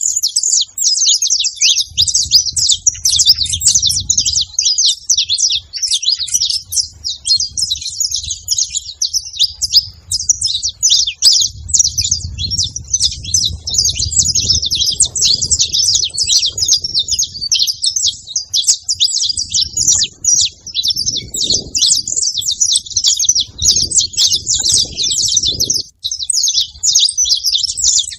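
A flock of saffron finches chirping and singing together, many high calls overlapping without a break.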